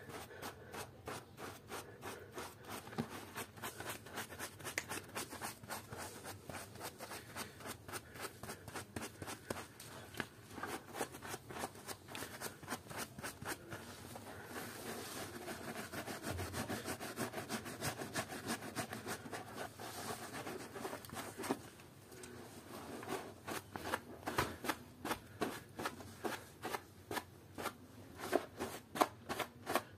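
Wet scrubbing of a soap-foamed plush toy with a small hand-held plastic brush, in quick back-and-forth strokes of about three to four a second. For a stretch after the middle the strokes run together into a smoother, slightly louder rubbing.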